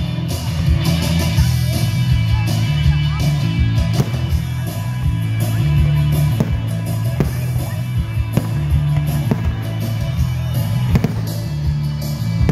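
Rock music from a live band playing loudly, with aerial firework shells banging irregularly over it, many reports in quick succession.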